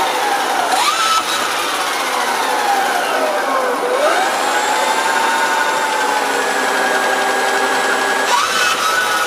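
Trampa brushless skateboard motors on VESC6 speed controllers spinning the rear wheels of a 1/3 scale RC car off the ground, giving an electric whine that follows the throttle. The pitch dips briefly about a second in, slides down slowly to around four seconds, then climbs back and holds, rising again near the end.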